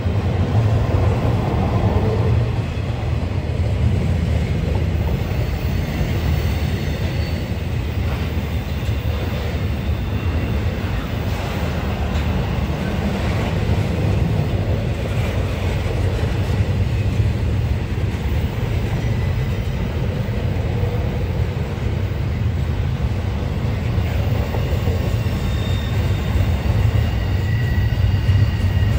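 Double-stack intermodal well cars of a long freight train rolling past, a steady loud rumble of steel wheels on rail, with a few brief faint high wheel squeals now and then.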